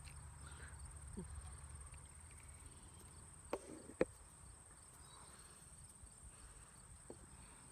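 Faint steady high-pitched buzz of insects. A little past the middle come two short sharp clicks about half a second apart, the second louder.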